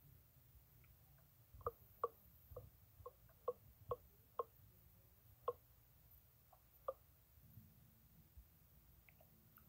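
Faint series of about a dozen short, sharp ticks at an uneven pace over about five seconds, each with a slight pitch, over a low hum.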